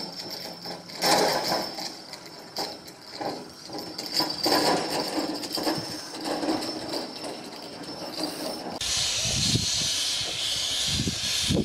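Narrow-gauge steam locomotive working slowly, with irregular chuffs and clanks. About nine seconds in, a loud, steady hiss of escaping steam takes over.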